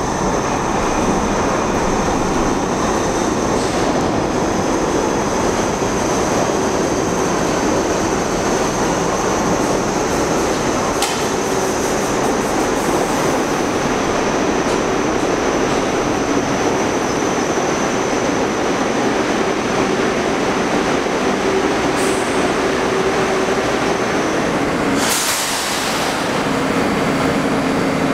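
New York City Subway R62A shuttle train pulling into an underground station and running along the platform, its wheels and motors rumbling steadily. There is a brief loud hiss near the end as it comes to rest.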